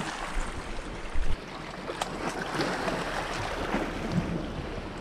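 Small sea waves washing over a rocky shore, a steady hiss of surf, with a short thump a little over a second in.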